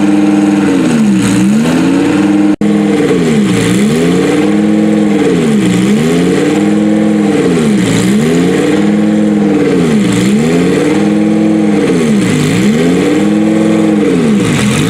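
A sports car engine revved up and down over and over, about once a second, in a steady repeating rhythm, with a split-second gap about two and a half seconds in.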